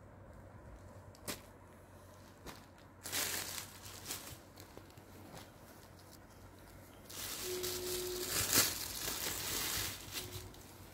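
Red sarees woven with metallic zari thread rustling as they are handled and shifted by hand. The rustling comes in two stretches: a short one about three seconds in and a longer one from about seven to ten seconds in.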